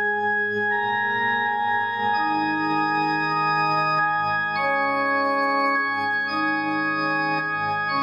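Slow background music of held, organ-like keyboard chords that change every couple of seconds.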